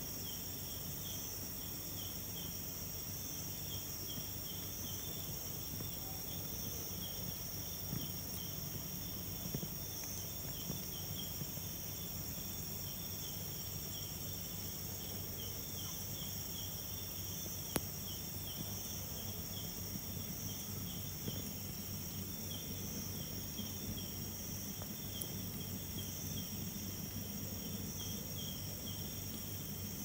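Night insects chirping steadily in two overlapping repeating rhythms, one high and one a little lower, over a low steady hum, with a single sharp click about midway.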